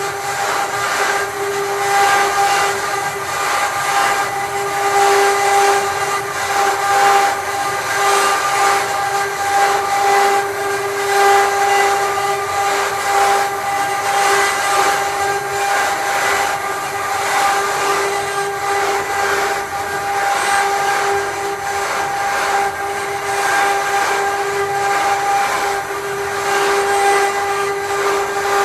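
CNC wood router running: a steady spindle whine with a constant pitch throughout, over a rough, fluctuating hiss of the bit cutting wood.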